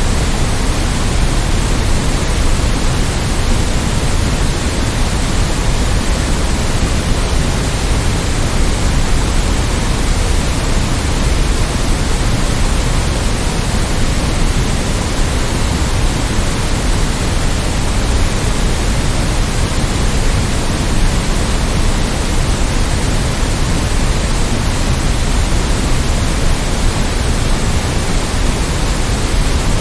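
Continuous generated white noise for sleep: a steady, even hiss across all pitches, a little fuller in the bass, with no changes or events.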